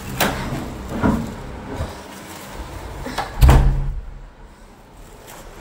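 A door being opened and shut: a few knocks and clicks in the first two seconds, then a heavy thud about three and a half seconds in, the loudest sound here.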